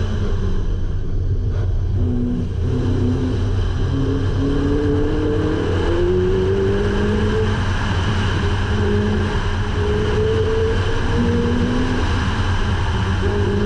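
Supercharged Honda CRX engine working hard on an autocross run: its note climbs under throttle, falls back as the driver lifts for the turns, and climbs again several times, over a steady low road and exhaust rumble.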